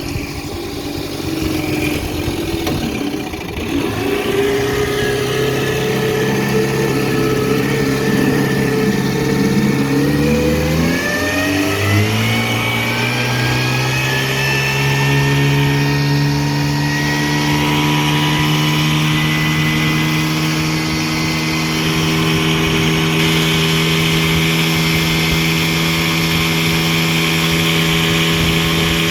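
1962 Scott-Atwater-built Wizard 14 hp two-stroke outboard motor running slowly, then opened up about a third of the way in: its pitch rises over several seconds and settles into a steady, higher-speed run.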